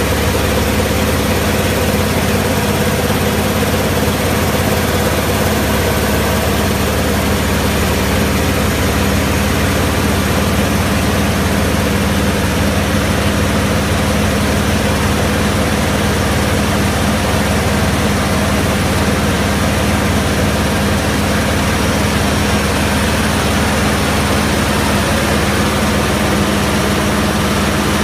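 1998 Morbark 1300 tub grinder's diesel engine running steadily, a constant low hum that does not change.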